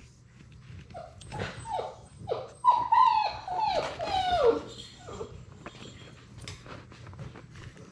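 Six-week-old Labrador Retriever puppy whimpering: a quick string of short whines, each sliding down in pitch, from about a second in until about five seconds in, with scattered light knocks and scuffs close to the microphone.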